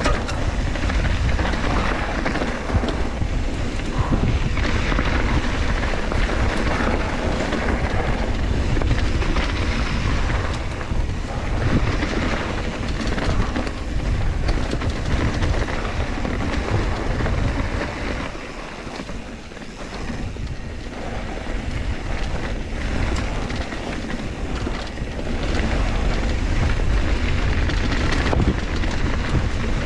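Mountain bike descending a dirt trail at speed: wind rushing over the microphone, with the tyres rolling on the dirt and the bike rattling over bumps. It eases off briefly about two-thirds of the way through, then picks up again.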